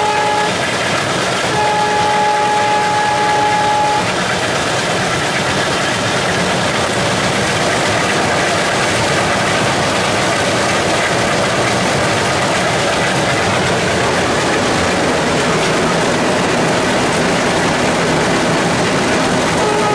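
Alco WDM3A diesel locomotive running at about 100 km/h, heard from inside its cab: a steady, loud mix of engine and wheel-on-rail noise. In the first four seconds a held tone sounds twice, with a short break between.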